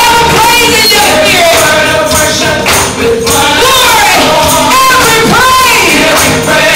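Loud gospel music: voices singing with a tambourine shaking along.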